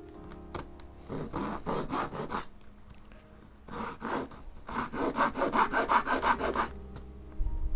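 Small hand saw cutting into a block of paulownia wood with quick back-and-forth strokes. The strokes come in three spurts with short pauses between them, and the last spurt is the longest and loudest.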